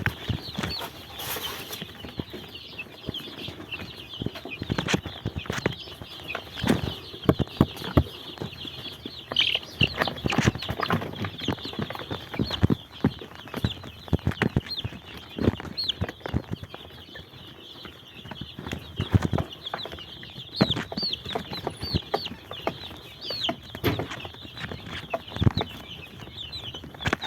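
Chickens clucking, with many short taps and knocks and a constant high-pitched chirping.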